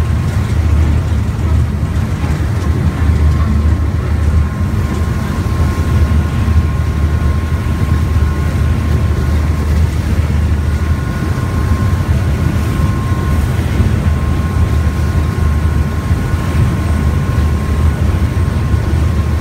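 Steady rumble of a fast passenger river boat under way, heard from its open stern deck: engine noise mixed with the rush of the churning wake, with a faint steady whine above it.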